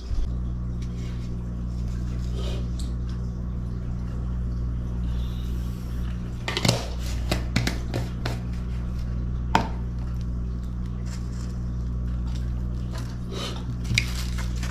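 A few short clinks of dishes and cutlery over a steady low hum.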